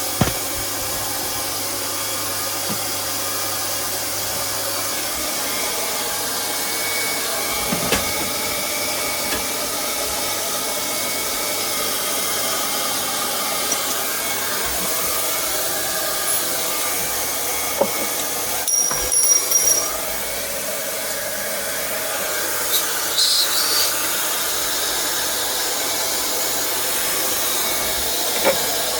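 Hot-air plastic welding gun blowing steadily as a plastic panel is welded, with a few scattered clicks and knocks and a short run of crackling about two-thirds of the way in.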